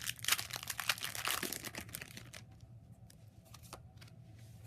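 A Pokémon trading card booster pack's foil wrapper being torn open and crinkled, a dense crackling rustle for about two and a half seconds, followed by a few faint rustles as the cards are handled.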